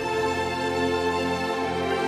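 Background music of slow, sustained chords, with a change of bass note right at the start.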